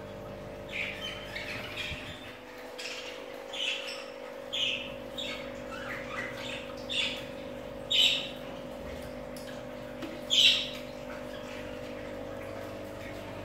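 Budgerigars calling in short chirps and squawks, scattered one after another, the loudest two near the end.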